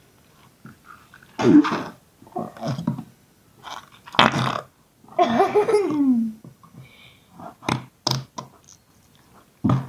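Yellow slime squelching and letting out wet, fart-like air pops as it is squeezed and pressed by hand, several times, one of them a pitched squelch sliding downward. A few sharp clicks follow as the slime is pushed down into a jar.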